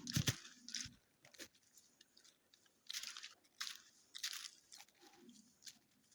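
Footsteps crunching through dry fallen autumn leaves, an uneven series of short crunches.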